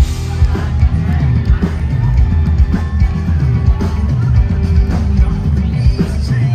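Live country band playing at full volume, with drums, electric guitars and bass kicking in suddenly at the start. Heard from the crowd in front of the stage, with a heavy, booming low end.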